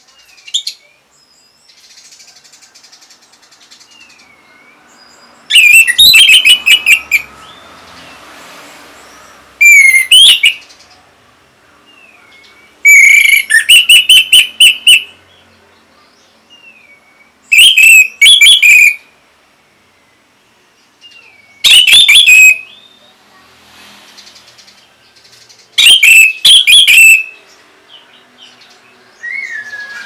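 Orange-headed thrush (anis merah) singing in loud bursts of rapid, varied notes a few seconds apart, six phrases in all, with soft short chirps in between.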